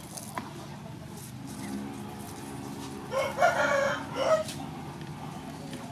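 A rooster crowing once, about three seconds in, lasting about a second and a half.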